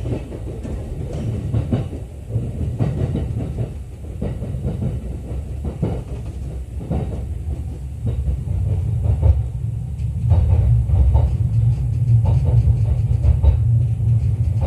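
Running noise of a JR East E231 series train heard from the lower deck of its bilevel Green car: a steady low rumble with irregular clacks of the wheels over the rails, the rumble growing louder about halfway through.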